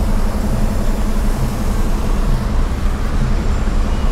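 Steady city street traffic noise: a continuous low rumble of road vehicles.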